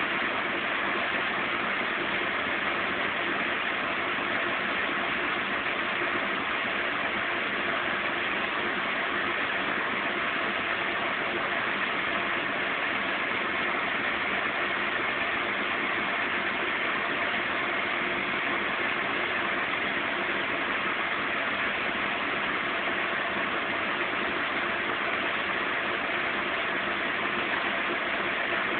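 Zanussi Z 630 washing machine in its final spin at 550 rpm: a steady motor-and-drum running noise at an even level, with a few held tones under it.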